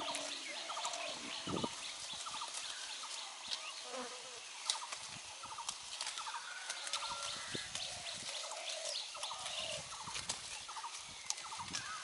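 Goats grazing in tall napier grass, with leaves rustling and snapping as they feed. Over it, birds call again and again in short, rapid chattering bursts.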